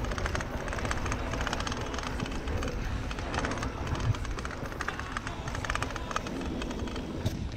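Mountain bike ridden along a dirt singletrack: tyres running over dry packed dirt with a rapid ticking rattle, wind rumbling on the handlebar-mounted microphone, and sharp knocks from trail bumps about four seconds in and just before the end.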